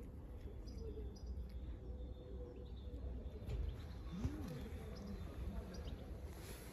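Faint small-bird chirps over a low steady rumble, with one short low call that rises and falls about four seconds in.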